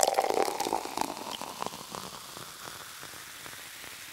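Carbonated soda fizzing after a pour: a dense crackle of popping bubbles that fades gradually.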